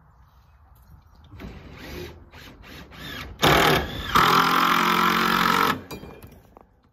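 Power drill driving a screw into a wooden board: a short burst about three and a half seconds in, then a steady run of about a second and a half that stops suddenly.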